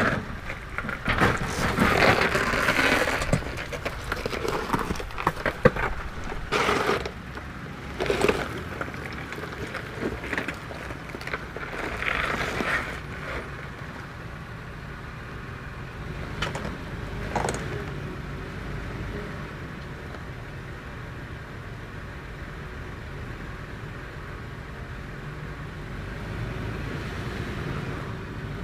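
Toyota 4Runner crawling over a rocky off-road trail: rocks crunching and scraping under the tyres in irregular bursts over the engine running at low speed. After about 18 seconds only the steady engine rumble is left, rising slightly near the end.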